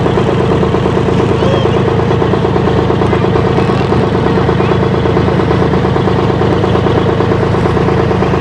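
A passenger ferry boat's engine running steadily, loud and even, with a fine regular pulse.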